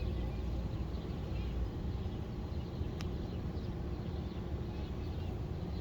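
305 small-block Chevy V8 running steadily with a ticking noise, which the owner suspects is a failing torque converter or a cracked flexplate. A single sharp click about three seconds in.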